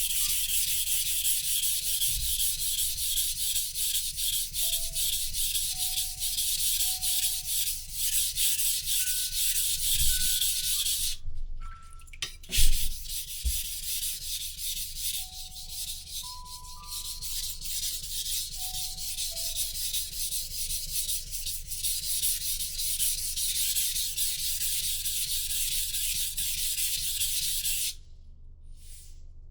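A knife blade being rubbed back and forth across a whetstone in quick repeated strokes, a steady gritty rasp. The strokes pause briefly about eleven seconds in, with a single knock, then carry on and stop near the end. Soft background music with a simple melody plays underneath.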